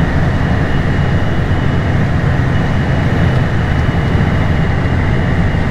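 Tractor engine running steadily with a deep drone, with a faint steady high whine above it.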